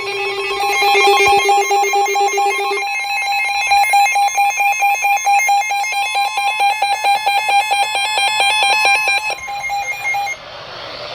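Emergency alert tone: a steady electronic tone that switches about three seconds in to a fast, evenly pulsing beep, then holds a single tone briefly and cuts off near the end.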